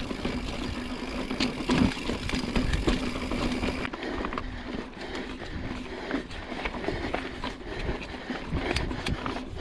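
Mountain bike being ridden over rough, rocky trail: frequent rattling clicks and knocks from the bike and tyres over a low rumble, with a steady hum that stops about four seconds in.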